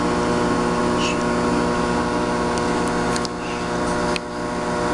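Microwave oven running with a steady hum while heating a bar of soap, with a few light clicks about three and four seconds in.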